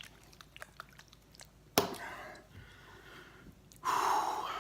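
A man's mouth and breathing as he reacts to a very hot pepper extract: small wet lip smacks and tongue clicks, a sharp click and quick breath about two seconds in, then a louder breathy exhale near the end.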